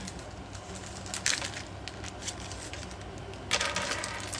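Bracelets clicking and clinking together as they are handled, with a brief rattle about a second in and a longer jingle near the end.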